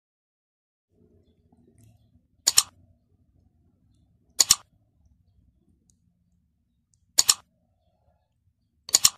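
Four sharp mouse-click sound effects about two seconds apart, some heard as quick double clicks, each marking a button press in a like-and-subscribe animation.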